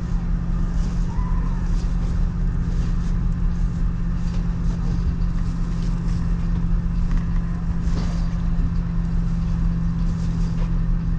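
Nissan NV van's engine and road noise droning steadily, heard from inside the cargo area while driving, with faint scattered rustles and ticks over it.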